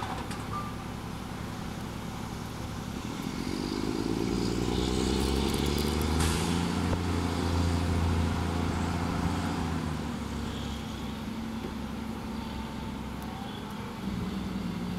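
Mack garbage truck's diesel engine revving up about three seconds in, holding a steady raised speed for several seconds, then settling back down near ten seconds.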